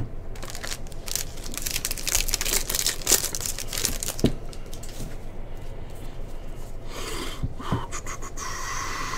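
Crinkling and rustling of trading cards and plastic sleeves being handled and sorted, for about four seconds, with two light taps about three and four seconds in, then a shorter rustle near the end.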